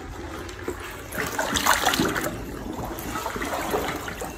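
Shallow water splashing and trickling in uneven bursts, stirred by someone catching crayfish by hand; the splashing is busiest between about one and two seconds in.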